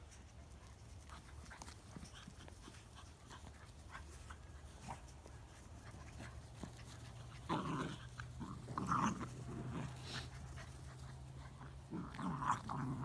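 Young puppies and adult dogs playing together, giving several short outbursts of dog noises in the second half, each under a second long. The loudest comes about two-thirds of the way through, and another comes near the end.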